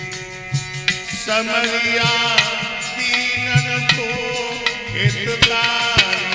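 Devotional bhajan: a man sings into a microphone over a harmonium's held chords. Tabla strokes keep a steady rhythm, with the bass drum's low thuds bending in pitch.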